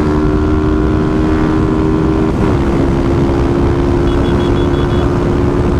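Honda CG 160 Titan's single-cylinder engine running hard at high revs near top speed, with wind rushing over the bike. The engine note dips slightly about halfway through, then holds steady. A quick run of faint high beeps comes about four seconds in.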